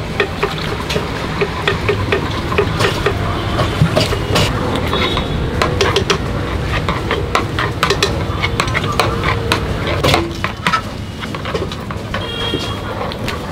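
Metal masher clinking and scraping against a large flat griddle pan as thick pav bhaji vegetable gravy is mashed and stirred, with many irregular sharp knocks over a steady sizzling, noisy background.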